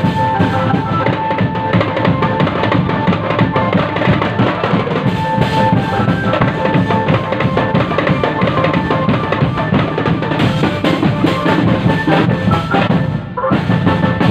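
Indonesian marching drum band (drumband) playing: bass and snare drums beating a loud, dense rhythm, with a high melody held over the drumming. The playing breaks off briefly about 13 seconds in, then picks up again.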